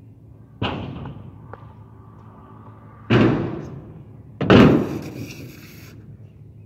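Stunt scooter banging onto a metal skatepark quarter pipe three times: about half a second in, around three seconds in and, loudest, about four and a half seconds in. Each impact is followed by a short, fading rumble of the wheels rolling on the ramp.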